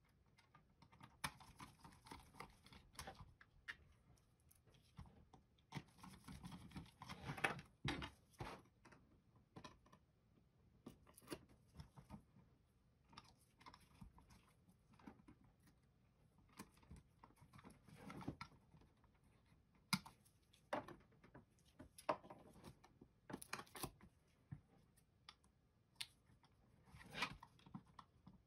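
Faint, irregular clicks, taps and short scrapes of small plastic parts being handled, as the shell of a Microsoft IntelliMouse Optical is worked with a small screwdriver and tweezers.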